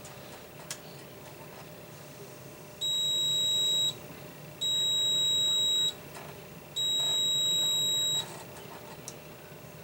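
Digital multimeter on its continuity setting beeping three times with a steady high tone, each beep lasting about a second, as the probes touch a component's pins. The beep signals near-zero resistance: a dead short across a rectifier part on the power supply's secondary side.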